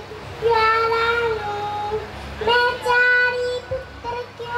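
A young girl singing solo into a handheld microphone, in two long phrases of drawn-out held notes.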